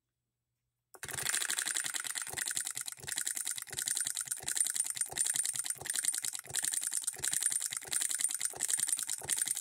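Hand-built solenoid-driven hit-and-miss model engine running: rapid metallic clicking and clattering of the coil, plunger and linkage, hitting and missing. The sound starts abruptly about a second in.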